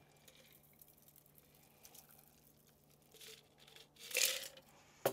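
A cocktail double-strained from a metal shaker tin through a fine-mesh strainer into a coupe glass: a faint trickle of liquid, with a short, louder splash about four seconds in.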